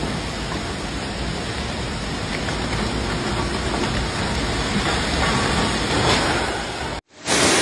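Heavy rain pouring, a steady hiss. It cuts off abruptly about seven seconds in, and a louder rushing sound starts just after.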